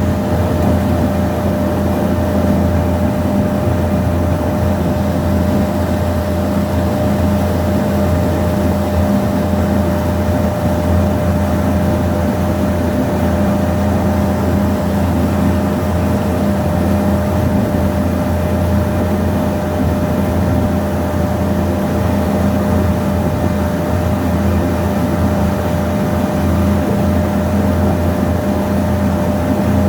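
Ferry boat's engine running steadily under way, a low drone with a thin steady whine above it.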